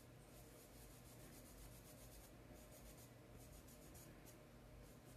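Faint scratching of a paintbrush scrubbing paint onto coarse black sackcloth, in repeated short strokes. The brush is nearly dry, carrying only a trace of fabric paint.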